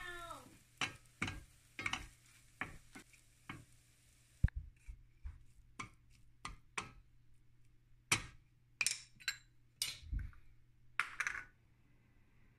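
Wooden spatula stirring and scraping crumbled food around a stainless steel frying pan, a string of short, irregular scrapes with a sharp knock about four and a half seconds in.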